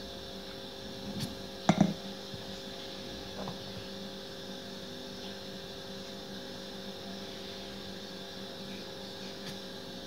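Steady hum of a few steady tones, like an appliance running in a small room, with a brief knock about a second in and a louder double knock just under two seconds in.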